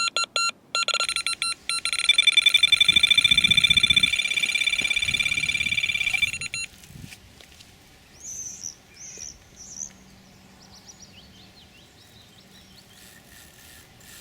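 Electronic carp bite alarm sounding a run: beeps at first, then coming so fast they merge into a near-continuous tone for about four seconds before stopping, the sign of a fish taking line. A bird chirps three times shortly after.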